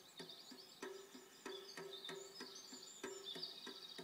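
Faint rhythmic music with a quick steady beat, about three strokes a second, and high chirping sounds over it.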